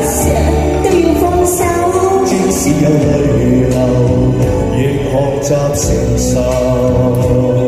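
A man and a woman singing a pop duet into handheld microphones over a backing track with a steady beat.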